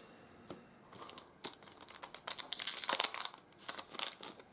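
Foil wrapper of a Panini Select soccer card pack crinkling as it is torn open and crumpled by hand: a dense run of sharp crackles from about a second and a half in.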